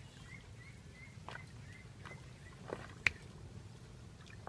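A run of about four short, faint chirps from a small animal over the first second and a half, with a few sharp clicks scattered through, the loudest about three seconds in.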